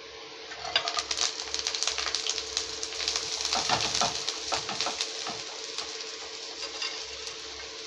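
Chopped fresh coriander leaves sizzling and crackling as they land in a hot pan with a little oil, with the dry rustle of the leaves being pushed off a steel plate by hand. The crackling is busiest in the first half and settles to a steadier sizzle, over a steady hum.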